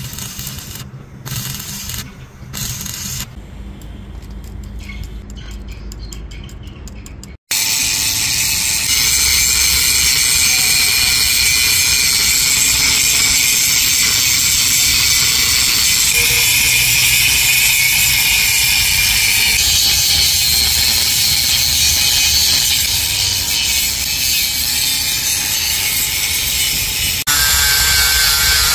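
Stick welding arc crackling in short broken runs on the steel shaft of a bulldozer final drive. After a sudden cut, a handheld angle grinder runs steadily against the steel shaft, grinding down the weld. About a second before the end the tone changes as a sanding disc works the shaft.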